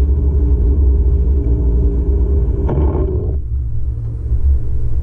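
Car engine and road rumble heard from inside the cabin while driving. About three seconds in there is a brief louder rush, after which the engine's higher tones drop away.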